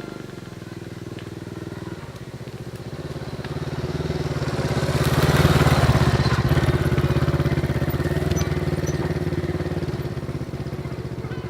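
A small engine running steadily with a fast, even firing beat. It grows louder to a peak about six seconds in, then slowly fades.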